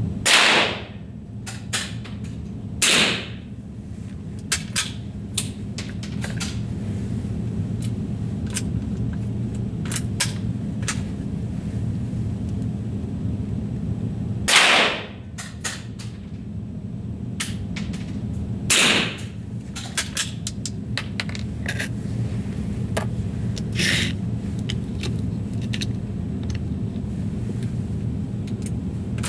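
Four rifle shots fired at a paper fly target: one right at the start, one about three seconds in, then two more near the middle. Small clicks come in between over a steady low hum.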